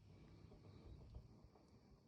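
Near silence: faint low background noise with a few weak ticks.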